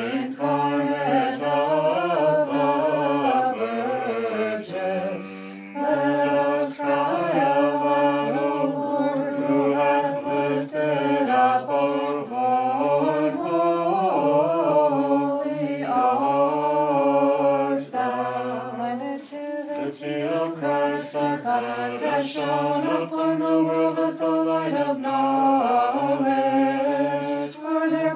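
Unaccompanied voices singing Znamenny chant: Orthodox Nativity carols in English, sung in slow, flowing melodic lines. Short breaths break the singing about five seconds in and again near eighteen seconds.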